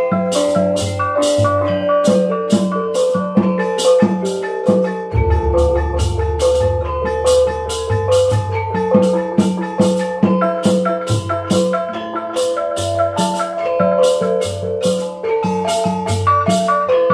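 Osing gamelan ensemble playing: bronze kettle gongs ring out a busy melody of struck notes over a drum and a steady beat of sharp strikes about two a second. A deep gong stroke sounds about five seconds in and hums on for a few seconds.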